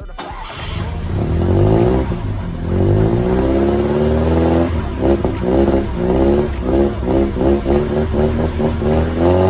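BMW engine being revved: it climbs in pitch about a second in, then is blipped repeatedly in quick, even throttle stabs, about three a second, through the second half.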